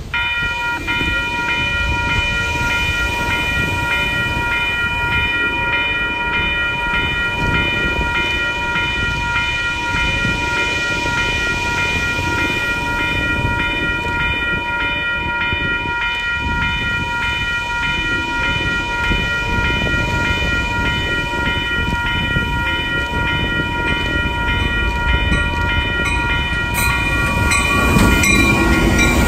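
A railroad crossing bell rings steadily over the low rumble of a train, which grows louder near the end as the train comes close.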